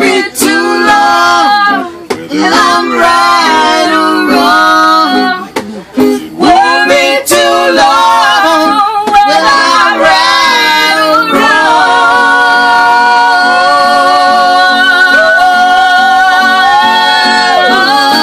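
An informal acoustic jam: voices singing over acoustic guitar. The singing pauses briefly twice, then settles into one long held note over the second half.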